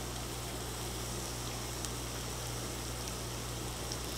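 Steady background hiss with a low, even hum underneath, unchanging throughout and with no distinct events.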